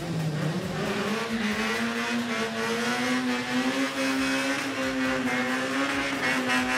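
Drag car doing a burnout: the engine is held at high revs in a steady drone that creeps slowly up in pitch while the tyres spin against the track. The revs drop off near the end.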